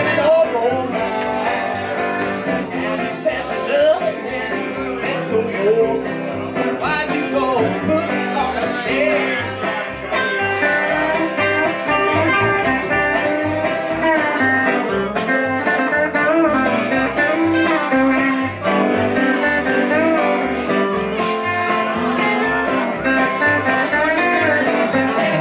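Live band playing a song on electric guitar, upright bass and acoustic guitar, with a steady bass pulse and a singer's voice over it.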